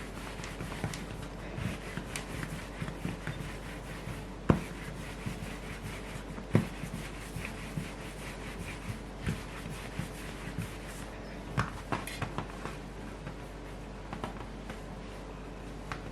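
Hands handling bread dough on a wooden work surface: soft rubbing and scattered light taps, with sharper knocks about four and a half and six and a half seconds in, over a faint steady hum.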